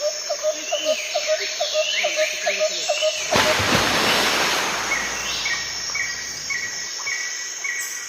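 Birds calling outdoors: a quick series of short repeated notes, about four a second, with higher chirps over them, then a short high note repeated about twice a second in the second half. About three seconds in, a loud rush of noise, like wind on the microphone, lasts about a second.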